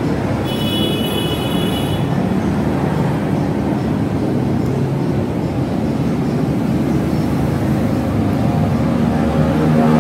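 Steady low rumble of vehicle traffic, with a brief high whine from about half a second to two seconds in.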